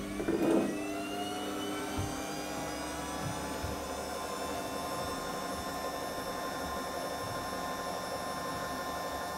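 JUlaVIE cold press juicer running after being switched on: a steady mechanical whir that rises in pitch over the first couple of seconds, then holds steady. A brief louder sound comes right at the start.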